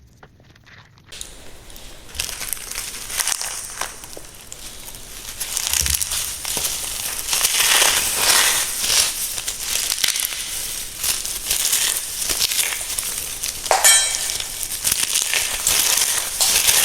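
Reformed, re-packed cornstarch being crushed and crumbled: a continuous gritty crunching and crackling that starts about a second in and grows louder, with one sharper crunch near the end.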